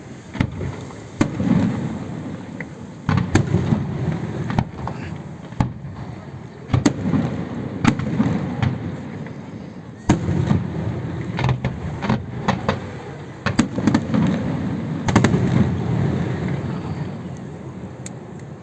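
Aerial fireworks display: a rapid, irregular run of sharp bangs and cracks, each followed by a booming low rumble. The bangs come in dense clusters every few seconds.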